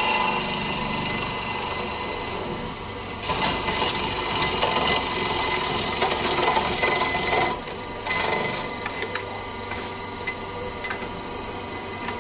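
Metalworking machinery running with a steady high whine. It grows louder for a few seconds from about three seconds in, then drops back, with a few sharp clicks near the end.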